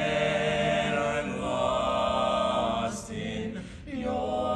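Mixed barbershop quartet singing a cappella, holding a sustained close-harmony chord for about three seconds. After a brief break with a breath, the voices come back in on a new phrase near the end.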